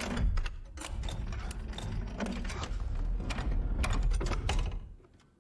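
Hidden floor mechanism grinding with a low rumble and many rapid ratchet-like clicks as a yin-yang floor opens onto a spiral staircase, stopping about five seconds in.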